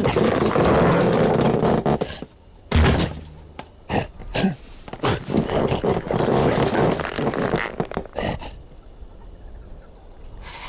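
Cartoon lion's growling roar, followed by a heavy thud about three seconds in and a run of short scuffling and vocal sound effects that fade near the end.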